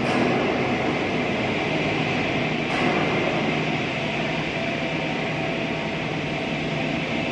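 Continuous industrial noise: a steady roar with a faint hum under it.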